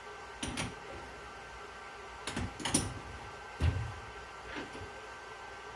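A few short metal knocks and clicks from handling a workpiece and tools in a shop, with a duller thump about three and a half seconds in, over a faint steady hum.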